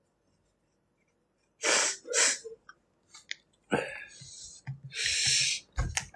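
A person's two sharp, breathy bursts, half a second apart, about two seconds in. They are like sneezes. Then comes a long hissing breath a little after five seconds.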